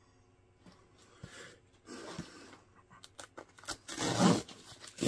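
Hands picking and tearing at heavy sellotape on a parcel: scraping rasps, a quick run of small clicks, then the loudest ripping rasp about four seconds in.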